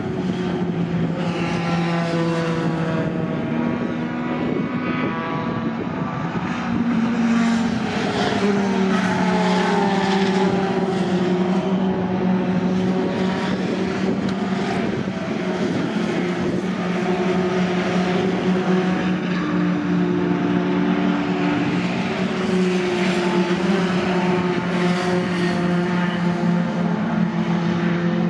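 Racing pickup trucks' engines running at speed around the circuit: several engine notes overlap and rise and fall as the trucks accelerate, shift gear and brake through the bends.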